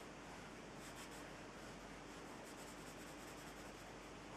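Pencil lightly scratching on drawing paper in a few short, faint strokes as details are sketched onto a fashion figure.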